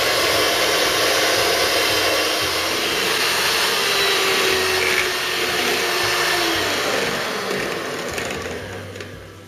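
Electric hand mixer running steadily, its beaters whipping chilled cream in a stainless steel bowl as the cream thickens toward soft peaks. The whirring fades out over the last couple of seconds.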